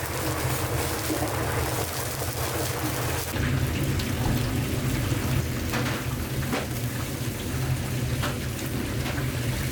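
Chicken skewers sizzling and crackling as they cook, a dense hiss with a few sharp pops, over a steady low hum.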